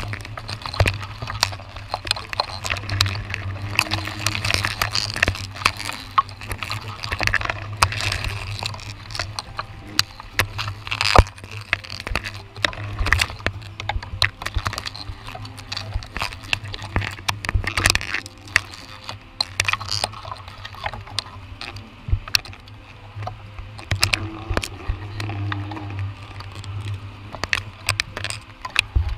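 Rain pattering and dripping on the pole-mounted camera and the leaves, a dense run of irregular small taps and clicks with rustling, over a steady low hum.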